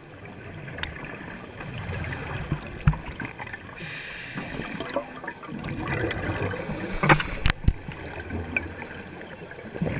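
Scuba regulator exhaust bubbles gurgling underwater, heard muffled through the camera's waterproof housing. There are a few sharp knocks near three seconds in and again around seven seconds in.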